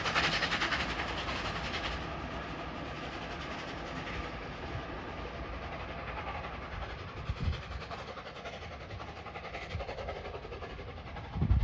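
Flying Scotsman steam train running past on the track, loudest at the start and fading away as it goes. Two short low thumps come about seven seconds in and near the end.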